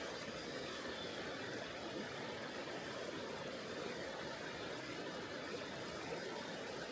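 Mountain river water rushing in a steady, even stream with no breaks.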